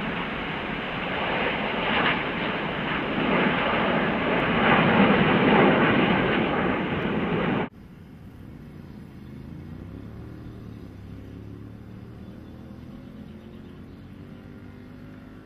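Jet engines of a formation flypast, the Airbus A380 airliner with the Red Arrows' BAE Hawk jets, making a loud, steady rushing roar. About eight seconds in it cuts off suddenly and gives way to a much fainter, distant jet hum with slowly shifting tones.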